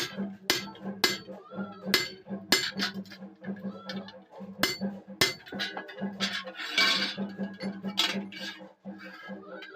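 Hand hammer striking iron on an anvil, ringing metallic blows at about two a second, with a pause midway and a short hiss later on.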